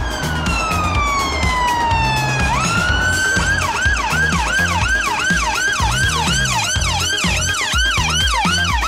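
Ambulance electronic siren: one long falling wail, then a sharp rise into a fast yelp of about two and a half sweeps a second. It plays over background dance music with a steady bass beat.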